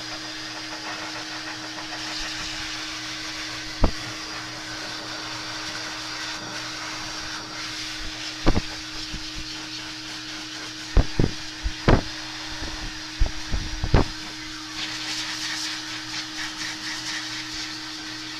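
Blow dryer running steadily, a constant hum and hiss of its fan. Several sharp knocks break in over it between about four and fourteen seconds in.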